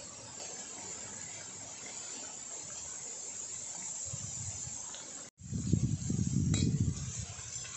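Steady hiss, then after an abrupt cut a louder low rumble and a single light clink of a steel ladle against a steel bowl.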